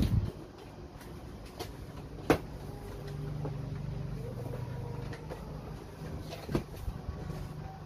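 A box and its packaging being handled: a thump at the start, a sharp knock a couple of seconds in, a stretch of low scraping, then another knock.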